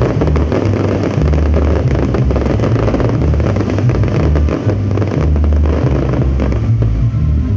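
Fireworks popping and crackling over a loud, low rumble that pulses in steps.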